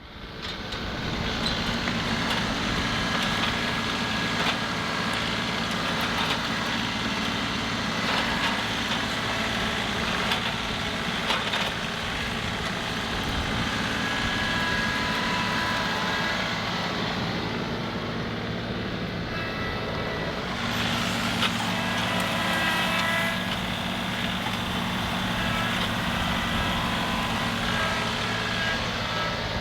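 John Deere 2038R compact tractor's diesel engine running steadily under work, with a few short knocks along the way; its sound changes for a few seconds around two-thirds through.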